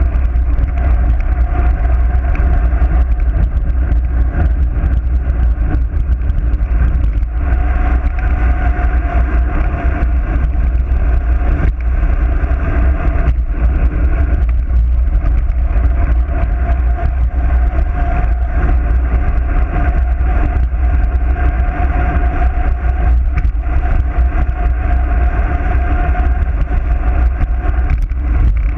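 Wind buffeting a bike-mounted GoPro on a fast road-bike descent: a loud, steady, low rumble, with a wavering hum above it.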